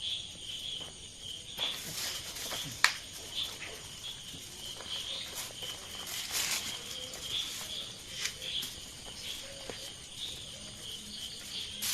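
Crickets chirping steadily in a constant pulsing trill, with scattered light rustles and clicks from food being handled on a banana leaf, one sharper click about three seconds in.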